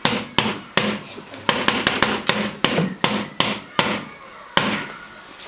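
Homemade drum, a cylinder covered in coloured paper, beaten with a pair of ball-headed mallets: quick, uneven strikes at about four a second, ending with a last hit near the end.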